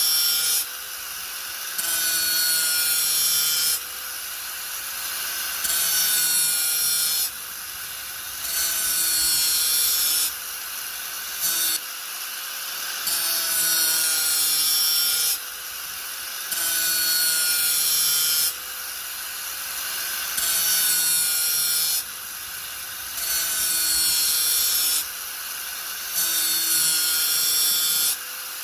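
Angle grinder running without a break, cutting or grinding in about ten repeated passes: each lasts about two seconds, the noise gets louder and the motor's pitch drops a little as the disc bears into the work, then eases off between passes.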